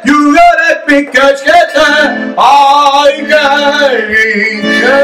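A man singing in Czech with a piano accordion playing along, the voice holding long notes between shorter phrases.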